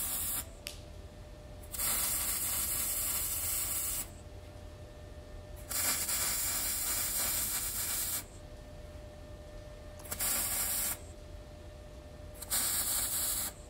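Wire-feed welder arc sizzling in short runs as a flat-bar lip is welded onto a steel plate firebox door: two runs of about two and a half seconds and a few shorter ones of about a second, with pauses between.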